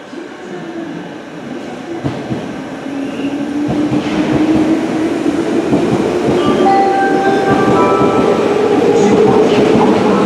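Electric train accelerating close by, its motor whine rising steadily in pitch while it grows louder, with wheels clacking over rail joints.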